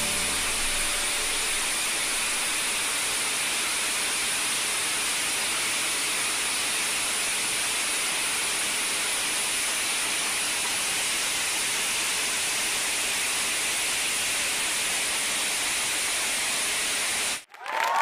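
Rushing whitewater of fast river rapids: a steady, even hiss of churning water that cuts off suddenly near the end.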